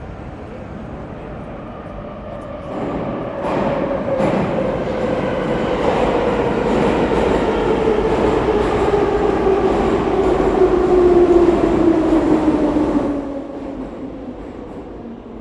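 A train runs past or into a platform. Its loudness builds a few seconds in, and a whine with several tones falls steadily in pitch as the train slows. It is loudest near the end, then drops away a couple of seconds before the close.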